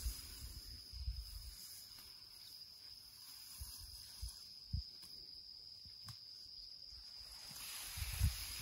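Crickets chirring as one steady high trill, with scattered low rustles and thumps.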